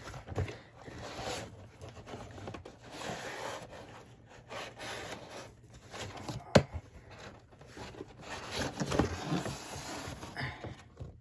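Cardboard box and packaging being handled and rummaged through, with irregular rubbing and scraping, and one sharp click about six and a half seconds in.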